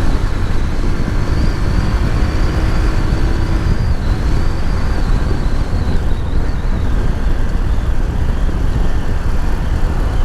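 Motorcycle riding on a road: a steady rush of wind noise and road noise over the microphone, with the motorcycle's engine running underneath.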